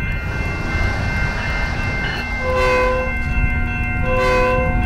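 Railroad crossing warning bells ring over the low rumble of an approaching train. About two seconds in, the train's horn joins with a held chord and short blasts.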